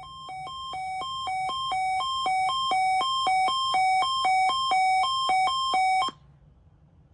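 Weather alert radio sounding its alarm for the weekly test: a two-tone electronic warble that alternates between a lower and a higher beep about twice a second. It grows louder over the first couple of seconds, then cuts off abruptly about six seconds in.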